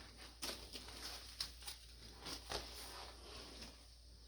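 Faint, irregular rustling and light taps of plastic bags and clothing being handled.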